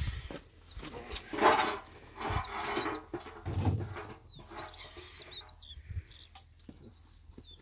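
Livestock bleating, two calls of about a second each in the first half, with small birds chirping high and briefly throughout.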